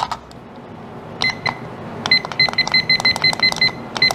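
Digital kitchen timer beeping as its buttons are pressed to set a ten-minute cooking time: two short beeps just over a second in, then a quick run of about ten beeps, some six a second, and one more near the end, over a low steady hum.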